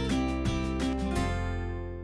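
Background music on acoustic guitar. About a second in, the last chord is left to ring and fades away.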